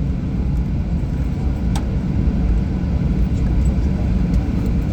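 Boeing 737 airliner heard from inside the cabin: a steady low rumble of engines and airflow, with one faint sharp click about two seconds in.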